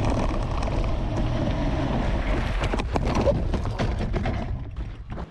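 Wind buffeting the microphone of a mountain bike bombing down a dirt descent, with clattering and knocks from the bike over rough ground; it fades out near the end.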